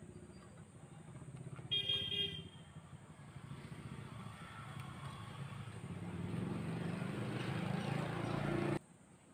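A motor vehicle's engine running, with a short horn toot about two seconds in; the engine grows steadily louder and cuts off suddenly near the end.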